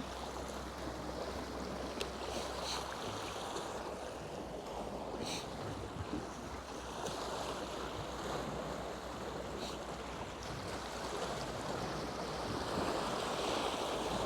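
Gulf surf washing in steadily, with some wind noise and a few faint high ticks.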